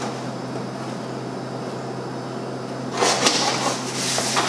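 Cardboard box being cut open with a knife: scraping and rustling from about three seconds in, over a steady low electrical hum.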